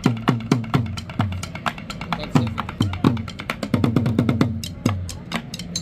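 Fast percussion rhythm played on improvised everyday objects: deep strokes that drop in pitch right after each hit, mixed with rapid sharp clicks.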